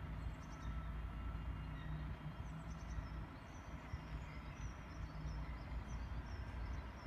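Faint, steady low rumble of a distant electric train running away down the line, with small birds chirping in short, repeated high notes.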